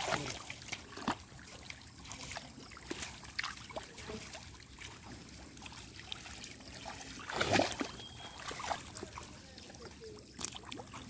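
Shallow muddy water sloshing as a child wades and gropes through it with his hands, with small splashes at irregular moments and one louder one about seven and a half seconds in.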